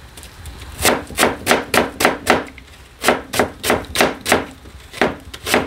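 Kitchen knife slicing a new onion thinly on a cutting board: quick strokes knocking on the board, about three a second, in two runs with a short pause about three seconds in.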